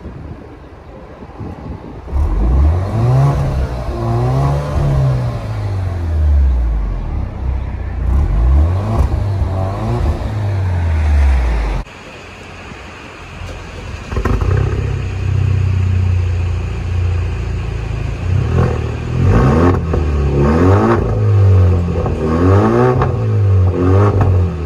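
2017 Alfa Romeo Giulia's exhaust, revved several times on the stock muffler and resonator. About halfway through, after a cut, the same exhaust with the muffler and resonator deleted idles and is then revved repeatedly, at a louder level.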